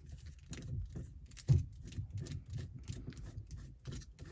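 Aftermarket shift knob being put on by hand and twisted down onto the gear-shift lever: a run of small irregular clicks and rubbing, with one louder knock about one and a half seconds in.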